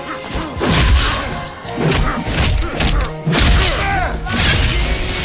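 Fight sound effects: a run of heavy punches and body impacts, about five hits spread over a few seconds, over score music.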